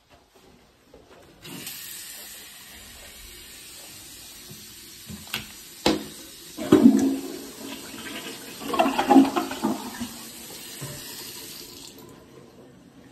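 Toilet lid knocked up against the tank with a couple of sharp clacks, then the toilet flushing, water rushing and gurgling in two surges. Under it runs a steady hiss of running water that stops near the end.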